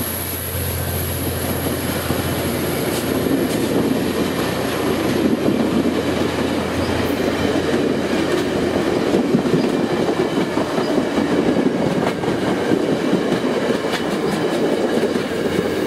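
Diesel-hauled passenger train passing close by. The locomotive's engine drone comes first and fades after about seven seconds, then the stainless-steel coaches roll past with a steady rumble and wheels clicking over the rail joints.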